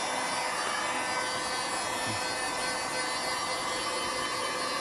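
Electric heat gun running steadily, its fan blowing a constant rush of hot air with a faint motor whine, as it warms a car's bare steel floor pan.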